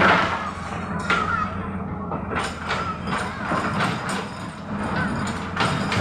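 Hydraulic excavator's diesel engine running steadily, with a string of knocks and clanks as it works in a rocky riverbed, the loudest right at the start and a cluster through the middle.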